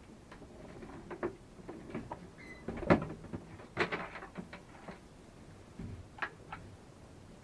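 Scattered light clicks, knocks and rustles of a car's interior wiring harness being handled and laid along the bare metal floor, with one sharper knock about three seconds in.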